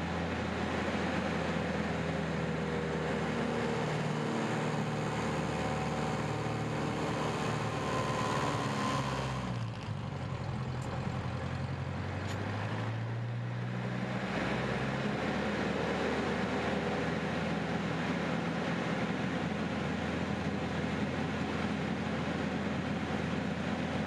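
CAP 10 aerobatic plane's four-cylinder Lycoming engine and propeller running steadily, heard inside the cockpit with airflow noise. Near the middle the engine note dips briefly, then slides down and climbs back as the aircraft goes through an aerobatic manoeuvre.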